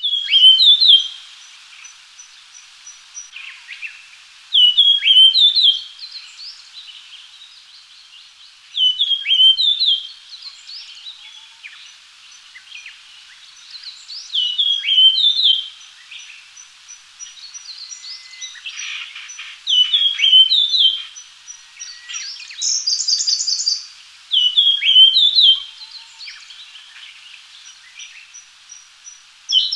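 Japanese grosbeak singing: a short, clear whistled phrase repeated about every five seconds, seven times. Between the phrases there are faint chirps, a thin run of high ticks, and a short buzzy call a little past the middle.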